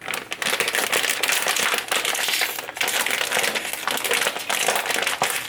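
Crinkly plastic potato chip bag being handled and crumpled, a continuous dense crackling.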